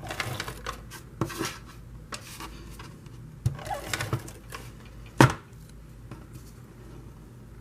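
Handling of paper and cardstock on a craft table: scattered rustles and light taps, with one sharper knock about five seconds in.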